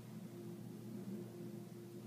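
Faint steady low hum, like equipment running in the room, with no other event.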